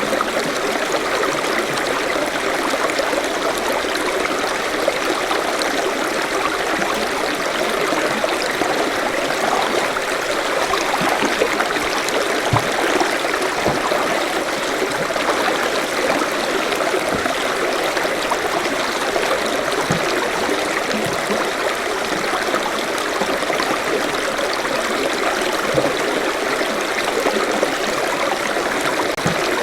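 Forest stream flowing steadily, water running and splashing over rocks with a continuous rushing and small gurgles.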